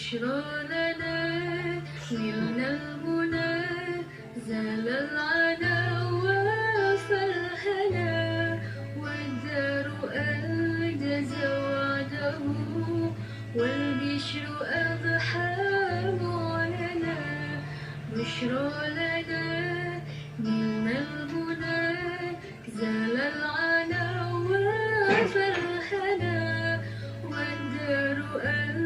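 Music: a song with a sung melody over plucked strings and a steady low bass line.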